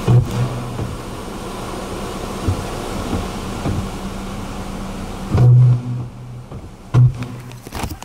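Power lines arcing in a storm: loud low electrical buzzing in bursts, a short one at the start, a longer, loudest one about five and a half seconds in and a brief one at seven seconds, over a steady rush of wind and rain.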